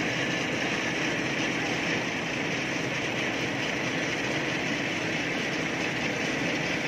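An engine-driven machine running steadily, an even drone that does not change in pitch or level.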